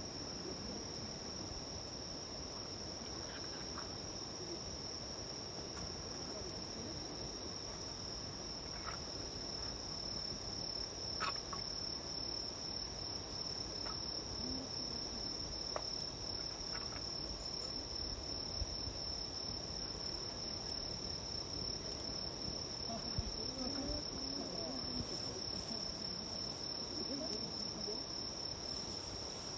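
Insects, crickets by their sound, trilling in one unbroken high-pitched tone. A few faint crackles and pops from a small wood campfire come through, the clearest about eleven seconds in.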